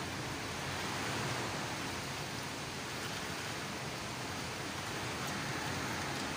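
Heavy typhoon rain falling steadily, a constant even rush that does not let up.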